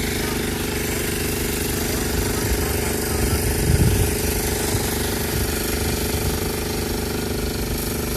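A motor running steadily with a fast, even pulsing, with a few louder low rumbles about three and a half seconds in.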